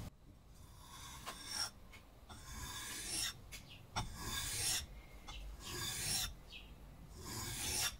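Steel scissor blade being sharpened on a wet combination whetstone: about five rasping strokes, one every second and a half or so.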